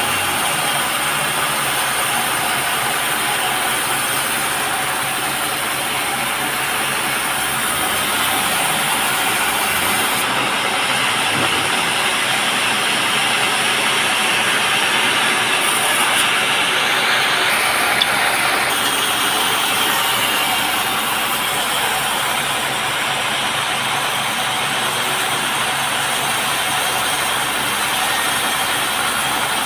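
Sawmill saw cutting through a teak log, a steady loud mechanical noise that grows a little stronger around the middle.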